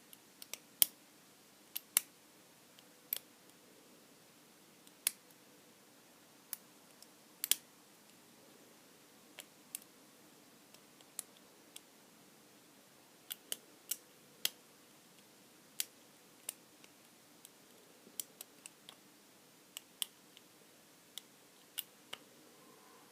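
Lock pick and tension wrench working the pins of a small Abus Brady lockout padlock: irregularly spaced sharp clicks, sometimes two or three in quick succession, as the pins are lifted and set.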